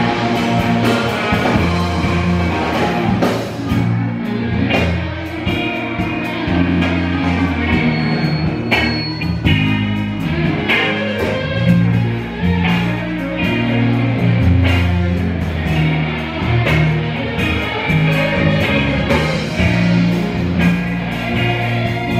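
Live rock band playing an instrumental passage: electric guitars over a bass guitar line and a drum beat, with no vocals.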